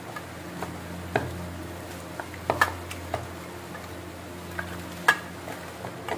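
Raw bone-in mutton pieces being rubbed with spices by hand in a stainless steel bowl: irregular light clicks and knocks as the bones and fingers hit the steel, the sharpest about two and a half and five seconds in, over a low steady hum.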